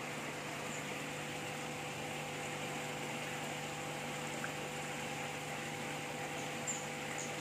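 Koi pond filtration equipment running: a steady machine hum under an even hiss of moving water, with a couple of faint ticks near the end.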